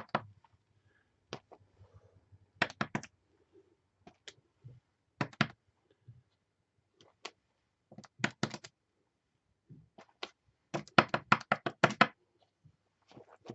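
A homemade stamp tapped down onto paper on a tabletop again and again: quick clusters of sharp taps with short pauses between, the busiest run near the end.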